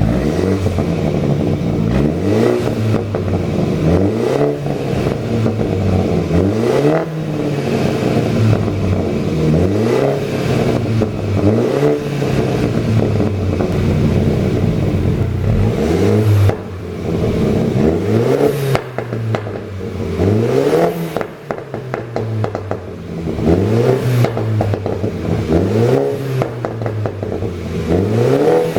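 BMW G30 530i's turbocharged four-cylinder engine being revved over and over, the revs rising and dropping about every two seconds, with exhaust pops and crackles as the revs fall. The pops on overrun come from a pop-and-crackle tune.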